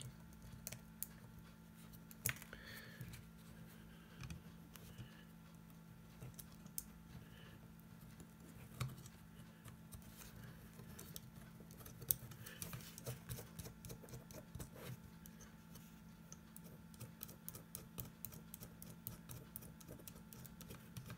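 Light, scattered clicks and taps of small metal nuts and brass standoffs being handled and threaded by fingers, more frequent near the end. A steady low hum runs underneath.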